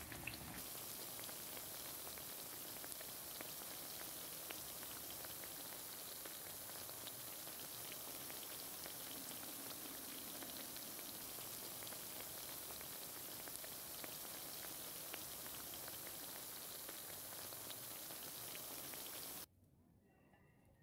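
Potato smileys deep-frying in hot oil: a steady sizzle with fine crackles and pops, which cuts off abruptly near the end.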